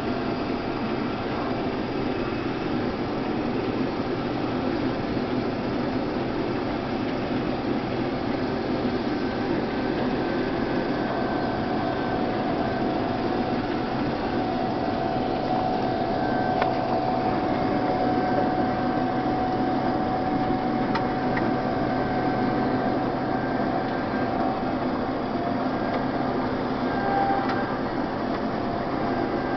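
A 1991 Case IH 1680 Axial-Flow combine running steadily while harvesting wheat, its engine and threshing machinery making an even drone with a steady whine that comes up about a third of the way in.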